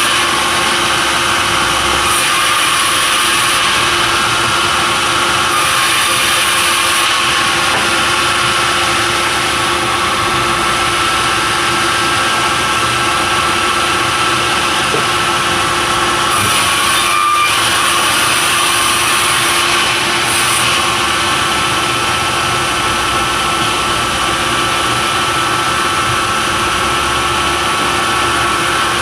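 Sawmill saw machinery running steadily, a loud continuous mechanical drone with several steady tones, briefly dipping about seventeen seconds in.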